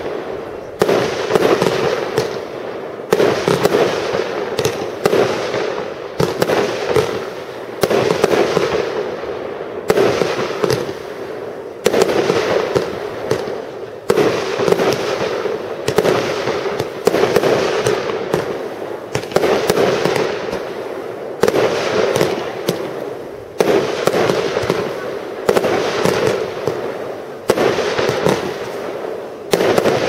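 Aerial fireworks bursting in quick succession, a sharp bang about every two seconds, each followed by crackling that dies away.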